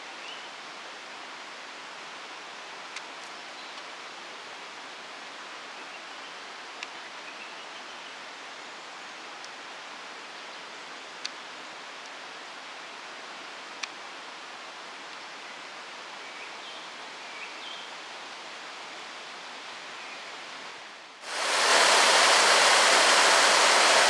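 Steady outdoor hiss with a few faint chirps and small clicks; about 21 seconds in it gives way to the much louder, steady rush of a rocky stream running over small falls.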